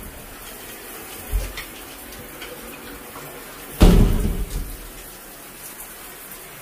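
Water running and spattering in a shower stall, a steady hiss, with a low thump about a second in and a louder knock-like clatter just before the middle.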